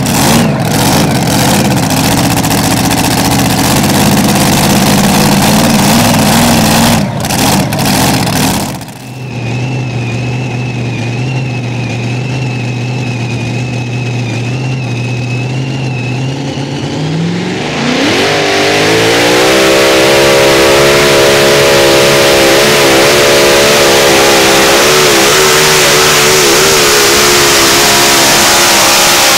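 Competition pulling-tractor engine at full throttle. About 9 s in it drops abruptly to a quieter steady running note with a high whine over it. About 18 s in the engine revs up and holds at high speed, loud and steady, through the end.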